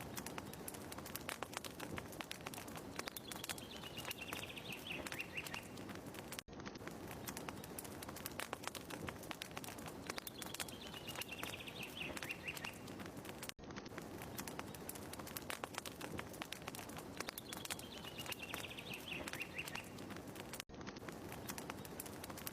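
Fireplace crackling: a dense, irregular patter of small pops and snaps over a soft hiss. It is a short recording looped about every seven seconds, with a tiny gap at each restart. Each repeat also holds one short, high chirping phrase that falls in pitch.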